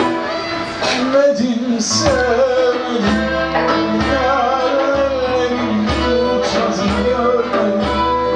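Live Arabic-Turkish ensemble music in the Nihavend mode: bowed violin, classical guitar and 'oud over a dohol drum, with deep drum strokes about once a second under a wavering melody line.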